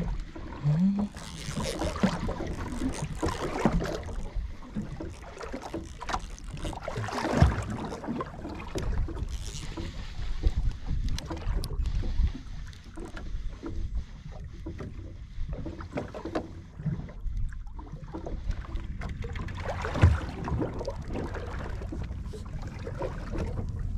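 A double-handled baitcasting reel being cranked and rod handling noise while a hooked fish is reeled in on a small boat, with irregular knocks and water noise against the hull.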